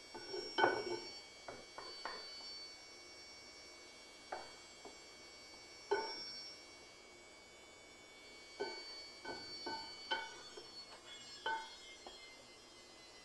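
A spatula knocking and scraping against a frying pan while egg and eggplant are stirred: irregular clinks, some in quick clusters, each with a short metallic ring at the same pitch.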